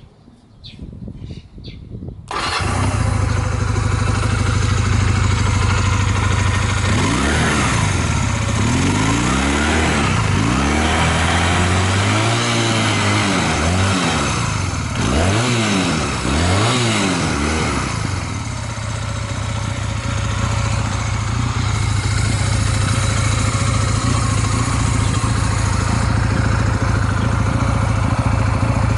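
Honda Rebel 250 (MC13) motorcycle's air-cooled parallel-twin engine starting about two seconds in, then idling steadily, revved up and down several times in the middle before settling back to idle. It runs evenly, which the seller takes for an engine free of abnormal noises.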